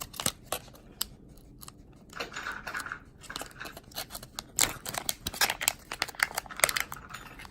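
A small bracelet package being opened by hand: packaging rustling, crinkling and tearing, with many sharp clicks and snaps, busiest in the second half.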